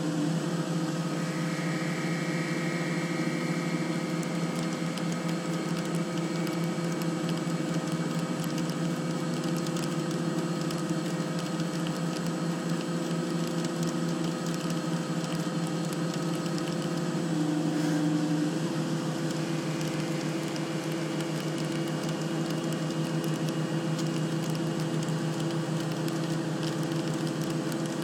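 CNC machine tool running while machining metal parts: a steady mechanical hum made of several constant tones. Partway through, the pitch of the tones shifts and then holds steady again.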